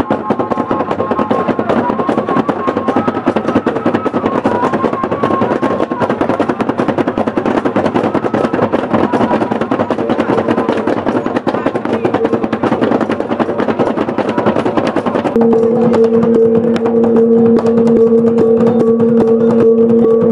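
Rope-tensioned barrel drums beaten fast with pairs of wooden sticks in a dense, rolling rhythm. A higher held tone sounds over the drumming at first, and a steady lower pitched tone comes in about fifteen seconds in and holds.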